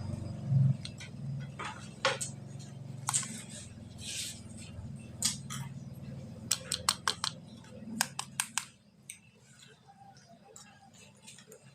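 Toy packaging being handled: scattered plastic clicks and taps with a few short rustles, over a low hum that drops away about nine seconds in.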